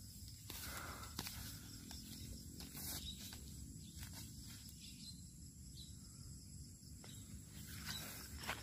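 Quiet outdoor ambience: a faint, steady high-pitched insect chirring, with a few soft clicks as the air rifle is handled on its tripod.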